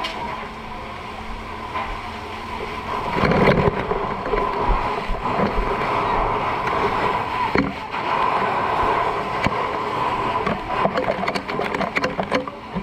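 Steady rushing of fire-hose water and running engines, with a steady high hum underneath. A heavy thud comes about three seconds in, and a quick run of knocks near the end.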